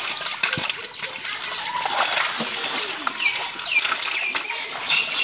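Water splashing as fish thrash in a cast net gathered in shallow pond water and are grabbed out by hand. The splashing is busy and irregular, with many short, sharp splashes and slaps.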